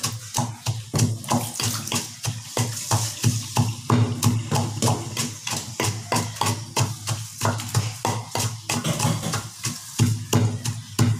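Wooden pestle pounding chili and garlic paste in a wooden mortar: a steady run of dull thuds, about three to four a second, each with a mashing squish.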